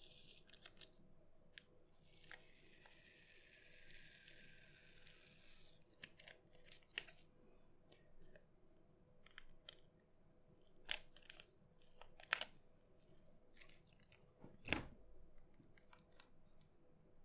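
Faint sound of strong adhesive being peeled apart inside a PinePhone: a rasping tear from about two to six seconds in. Scattered small clicks and taps of parts being handled follow, the sharpest a knock near the end.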